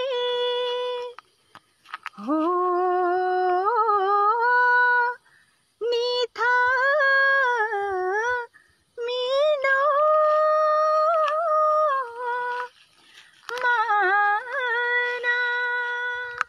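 A woman's unaccompanied voice singing a slow, wordless Kumaoni folk melody in long held phrases, about five of them with short breaths between.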